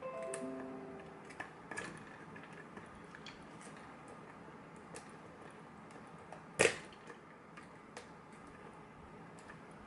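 Small metallic clicks and ticks of a key being tried in a lock's keyway, with a short metallic ring at the start and one sharp, louder click about two-thirds of the way through. The key, judged a good bitting, does not work the lock, and the picker doubts it is the right key.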